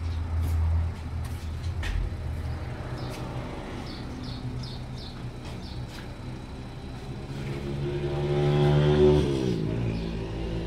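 A motor vehicle passing along the street: its engine grows louder, then drops in pitch as it goes by about nine seconds in. A low engine rumble is heard at the start.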